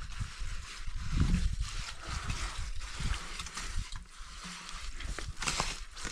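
Steel trowel scraping and smoothing wet concrete on a step, with sharper scraping strokes near the end. A low rumble runs underneath, loudest about a second in.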